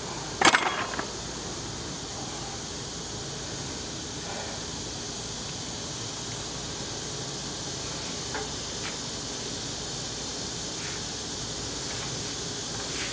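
A loud knock about half a second in, with a brief ring after it, from work on the steel compressor tank, then a steady background hiss with a few faint clicks.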